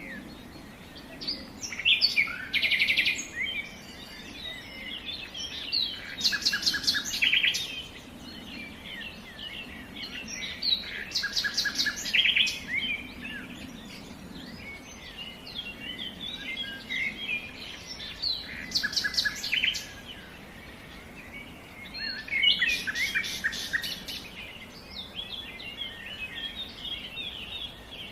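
Songbirds singing: rapid trilled phrases about a second long come every few seconds, with scattered chirps and twitters in between.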